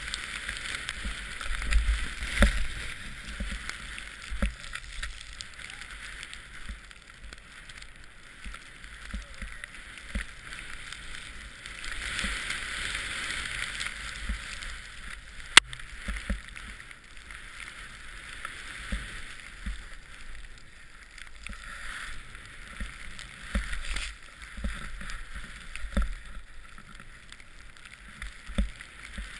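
Powder snow hissing and spraying as a rider descends through deep fresh snow, swelling and fading with the turns, with irregular low thumps of wind and bumps on the mounted camera's microphone. One sharp click about halfway through.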